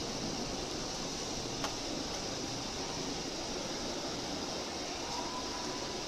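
Steady hiss of room noise with a single sharp click about a second and a half in.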